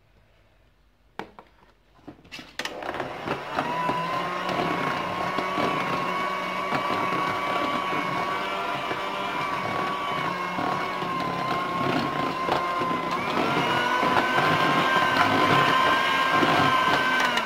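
Electric hand mixer starting after a few clicks about two and a half seconds in, then running steadily with a whine as its beaters work through chocolate génoise batter. About two-thirds of the way through its pitch steps up to a higher speed, and it stops near the end.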